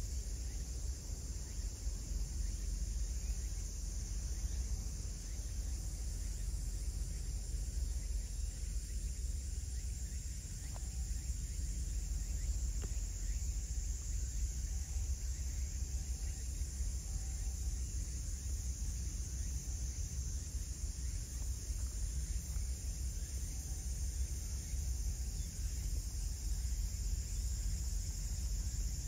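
Steady high chirring of crickets and other insects in the grass, over a constant low rumble.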